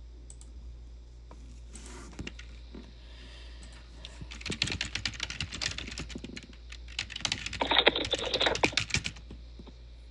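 Typing on a computer keyboard: two bursts of rapid key clicks, the first about four seconds in and a louder one near the end, over a steady low hum.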